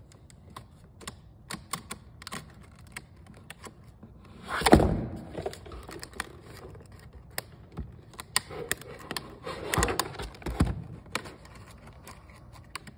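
Clear plastic clamshell packaging being handled and pried at by hand: a run of small clicks and crinkles, with a louder crackle about four and a half seconds in and another cluster of them around ten seconds.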